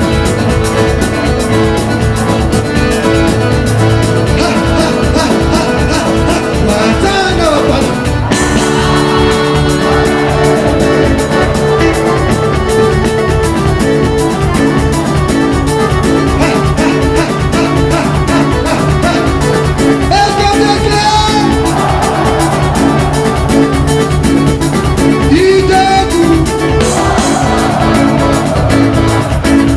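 Live band music with a fast, steady beat.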